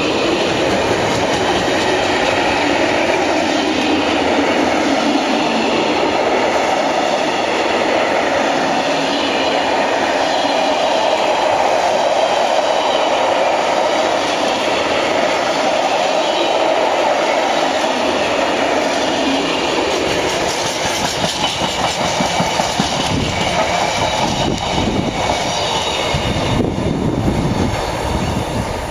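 Container freight train's wagons rolling past at speed, a steady loud rumble of steel wheels on rail. In the latter part it turns into an uneven rhythmic clatter, then drops away near the end as the last wagon clears.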